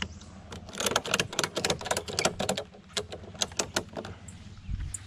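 Ratchet strap buckle clicking in quick, irregular runs as it is worked by hand, for about three seconds, with a low thump near the end.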